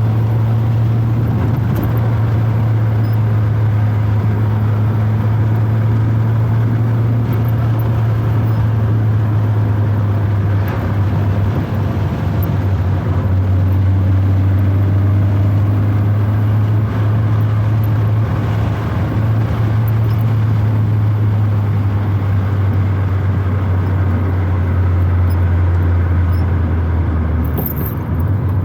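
Proton Wira 1.5's four-cylinder engine droning at fairly steady revs, heard from inside the cabin with road noise, easing off briefly near the end.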